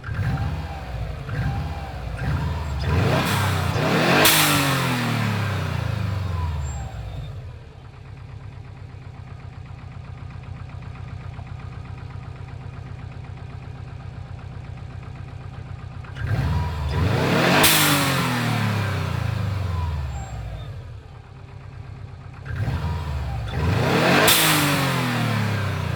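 Subaru Impreza WRX GC8's EJ20G turbocharged flat-four idling, then revved three times, the engine note rising and falling each time. The engine has a knock that the owner suspects is a connecting rod, while others put it down to the forged pistons.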